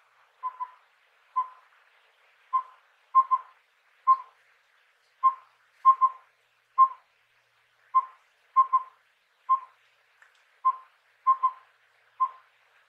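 Collared owlet (collared pygmy owl) giving its whistled four-note phrase "wüp-wüwü-wüp": one mellow note, a quick pair, then one more, repeated five times at even intervals of a few seconds.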